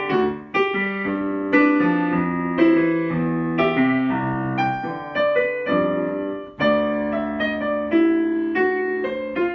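Yamaha digital piano in a piano voice playing a jazz piece: melody over struck chords at a steady pace, ending on a held chord near the end.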